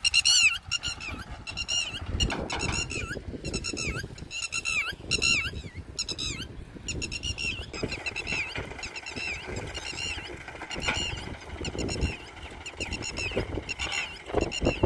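Quick runs of short, high-pitched squeaky chirps, repeating over and over and strongest in the first half, over the low rumble of a Powertrac Euro 50 tractor running.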